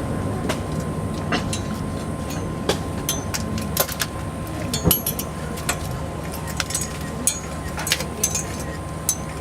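Aerial fireworks bursting: scattered sharp pops and crackles over a steady low rumble, with one louder bang about five seconds in.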